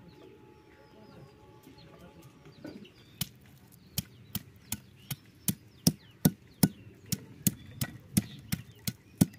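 Stone pestle pounding fresh ginger root on a carved stone grinding slab. Sharp knocks start about three seconds in and settle into a steady beat of about three a second.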